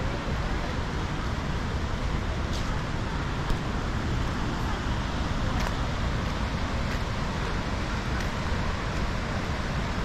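Hirni waterfall in monsoon flood roaring: a steady, even rush of falling water, with one brief click about three and a half seconds in.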